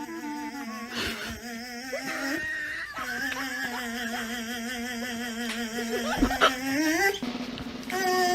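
Music with drums under a long held, wavering voice-like note that slides up near the end.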